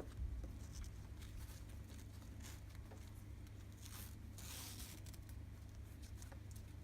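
Faint rustling and scraping of nylon strap webbing handled and pulled through a buckle, with a longer scrape about four and a half seconds in, over a low steady hum.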